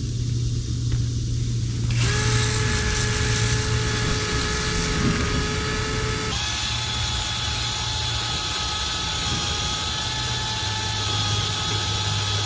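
Power drill switches on about two seconds in and runs steadily with a whine, its pitch shifting about six seconds in. A low hum runs underneath it.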